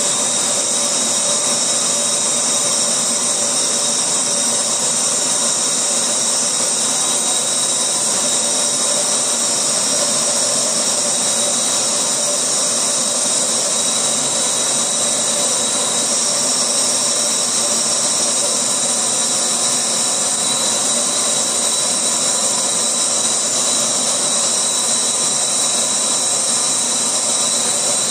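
GCC LaserPro Spirit GX CO2 laser engraver running while it traces a design into a wooden plate: a steady machine hiss with a thin, high, steady whine.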